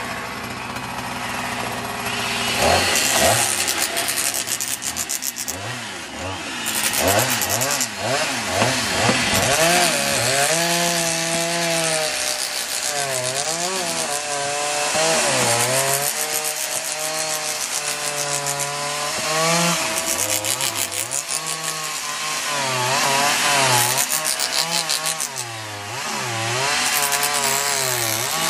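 Chainsaw cutting into wood, its motor pitch repeatedly rising and falling as the chain bites and frees in the log.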